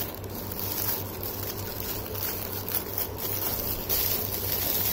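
Plastic seal wrapping on a new speaker driver crinkling and rustling as it is handled, irregular and continuous, over a steady low hum.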